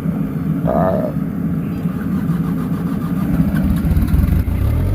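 The cold Airman excavator's diesel engine cranks over on the starter and catches about three seconds in, running louder and deeper as it fires. There is a brief whine about a second in.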